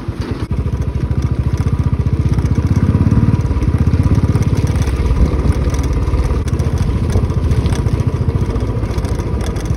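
Motorcycle engine running as the bike rides along, its exhaust pulsing in an even beat that grows louder for a moment about three seconds in.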